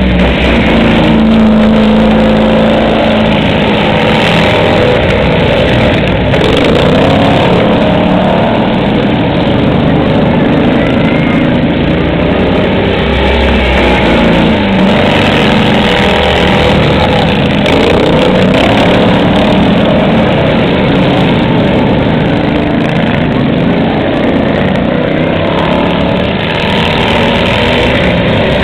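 Several racing riding lawn mowers' small engines running together on the track, their pitches rising and falling as the riders throttle up and ease off.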